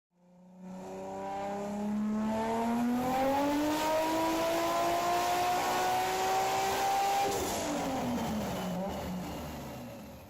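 A car engine accelerating, its pitch rising steadily for about seven seconds, then falling away as it comes off the throttle. The sound fades in at the start and fades out at the end.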